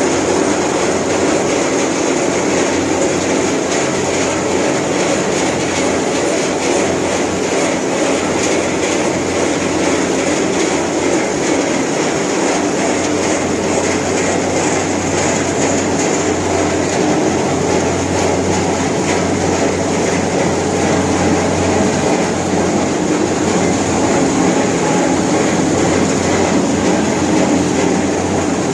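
CSJ-B rubber coarse crusher running together with its draught fan: a loud, steady machine din with a constant low hum and a hiss of moving air, unchanging throughout.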